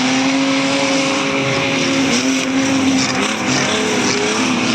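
Streetstock race car engines running hard on a dirt speedway, a steady engine drone whose pitch wavers a little as the cars pass and lift off.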